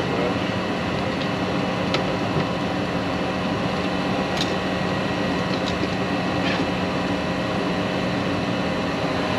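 Nordyne gas furnace running with a steady hum and a few faint ticks, being watched to see whether it stays on after its loose control-board connections were worked.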